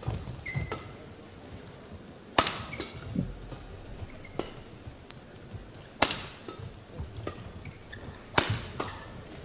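Badminton rally: sharp cracks of rackets striking a shuttlecock, the three loudest a few seconds apart with lighter hits in between, and brief squeaks of shoes on the court mat.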